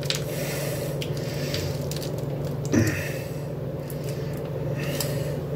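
Soft wet squishing of mac and cheese being worked in a pot, with scattered light clicks and one slightly louder knock near the middle, over a steady low hum.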